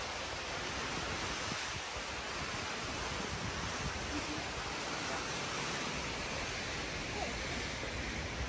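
Wind blowing steadily, a constant rushing hiss with a low rumble of wind buffeting the microphone.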